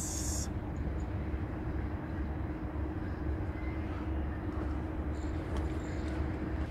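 Steady low mechanical rumble with a constant droning hum, from a distant engine. There is a short hiss right at the start and soft rustling near the end as the fish is laid into the unhooking mat.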